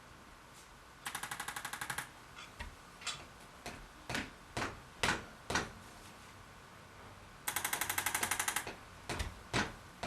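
Electric percussive chiropractic adjusting instrument, of the ArthroStim kind used in KST, firing two rapid runs of taps, about a dozen a second. Each run lasts about a second: one a second in and one near the end. Scattered single knocks fall in between.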